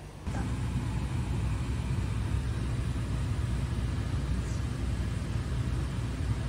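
Steady low rumbling noise with a hiss inside a car's cabin, cutting in suddenly just after the start.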